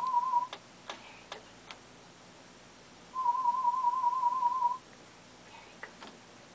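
Two warbling whistled notes, each a single steady pitch with a quick, even wobble and lasting about a second and a half. The first ends about half a second in, and the second comes about three seconds later. A few faint clicks fall in the gap between them.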